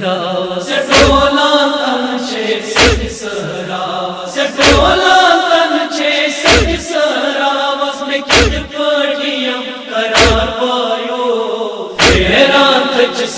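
Male reciter chanting a Kashmiri noha (mourning lament) through a microphone, with other mourners' voices joining in. Under it, the deep thud of chest-beating (matam) keeps time, about one beat every two seconds, seven in all.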